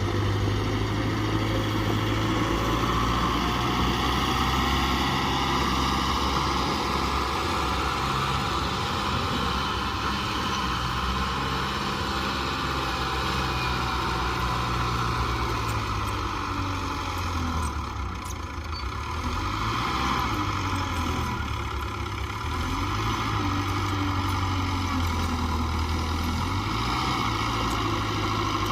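Small bulldozer's diesel engine running steadily. Its pitch and load shift up and down about two-thirds of the way through as it works.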